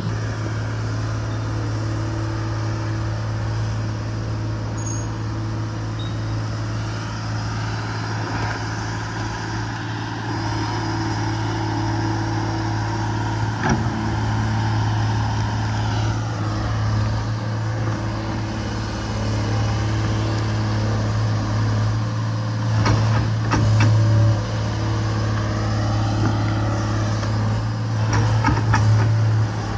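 Case 125B excavator's diesel engine running under load with a steady drone, and a whine that bends up and down in pitch as the boom and bucket move. A few sharp knocks come from the bucket working stumps and dirt, the loudest about two-thirds of the way in and near the end.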